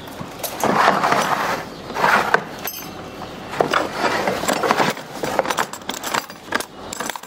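A Dekton hard plastic tool case being handled on a wooden floor: its metal snap latches click open and the case knocks against the boards, with scattered clinks.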